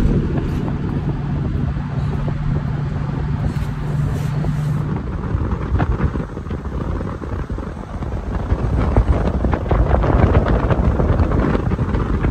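Moving car: road noise with wind buffeting the microphone, a low steady hum during the first five seconds, and the buffeting growing louder from about eight seconds in.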